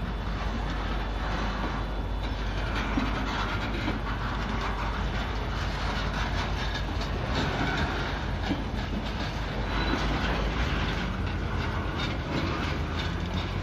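Norfolk Southern freight train's loaded steel-coil cars rolling past, their steel wheels running on the rails with a steady rumble and a stream of clicks and clatter.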